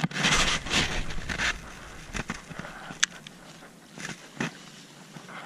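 Close rustling and handling noise as clothing brushes past the microphone, then a few scattered sharp clicks and knocks from handling the fishing rod and reel.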